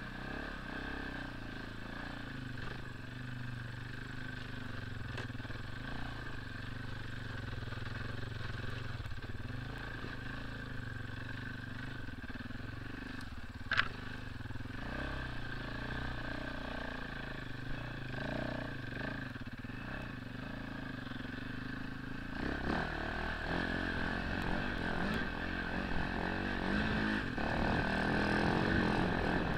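Husaberg 450 FE single-cylinder four-stroke enduro engine running under way off-road, heard from on the bike, getting louder and fuller about three-quarters of the way through. A single sharp knock about halfway.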